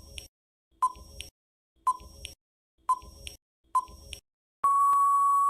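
Quiz countdown-timer sound effect: short beeps about once a second, then one longer steady beep near the end marking that time is up.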